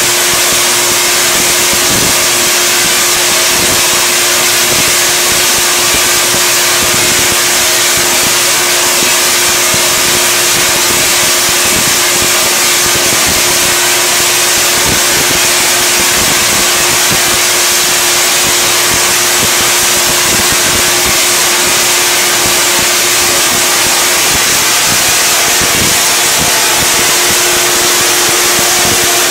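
Half-wave Tesla coil, powered by a 10 kVA pole transformer, firing continuously with a long arc jumping about 50 inches between its two toroids: a loud, steady crackling buzz with a steady pitched hum running through it.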